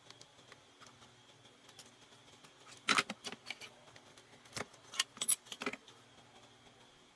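Small metal tools clicking and tapping on a circuit board while a burnt, shorted varistor is desoldered from a 19 V power adapter: a few sharp clicks about three seconds in and a cluster of clicks around five seconds, over a faint steady hum.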